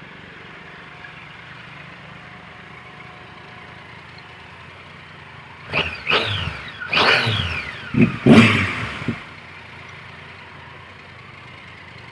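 Triumph Tiger Explorer's three-cylinder engine on an Arrow aftermarket exhaust, idling, then blipped about five times in quick succession. Each rev falls back before the engine settles to idle again.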